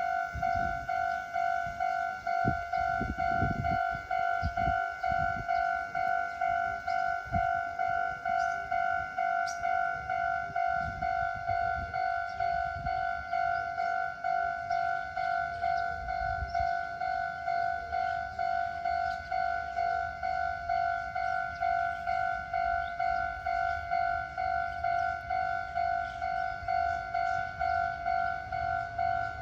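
Japanese level-crossing alarm ringing a fast, even, two-tone ding-ding, its speaker slightly distorted. Through the first half a train passes over the crossing, rumbling, with knocking wheel clacks.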